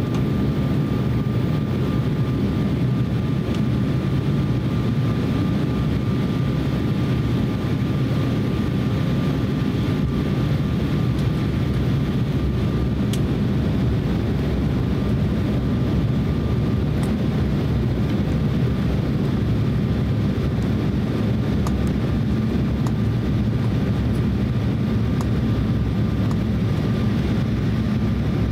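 Cabin noise inside an Embraer E170 airliner descending on approach: the steady rumble of its General Electric CF34-8E turbofan engines and the airflow over the fuselage, with a thin steady tone above it.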